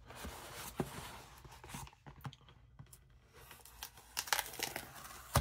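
Fingers picking at and peeling reinforced paper sealing tape off a cardboard box, tearing it with a soft rustle, then several short scratches and clicks near the end.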